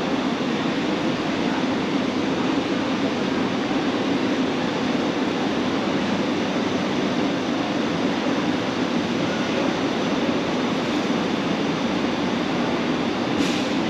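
Steady rumbling background noise of a large warehouse store's interior, with a single short click about a second before the end.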